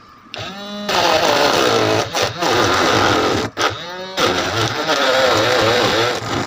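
Homemade chili cutter, a small 12-volt DC motor spinning a blade inside a plastic container, switched on twice. Each time its whine sweeps up as it spins up, then it runs loudly with a wavering pitch as green chilies are fed in and chopped. It cuts out briefly about halfway through and stops near the end.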